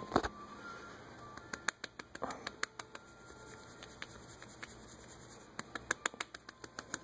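A hand rubbing a small dog's belly on a cushion: rustling with runs of quick, light clicks, one run about two seconds in and another near the end, after a single sharp knock at the start.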